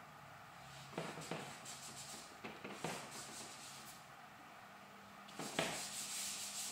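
Charcoal scraping on drawing paper in short strokes, then, near the end, a hand rubbing across the paper to blend the charcoal into a dark tone.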